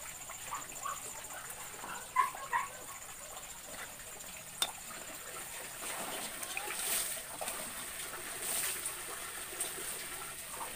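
Fish balls deep-frying in hot oil in a wok: a steady sizzle, with one sharp click a little before halfway.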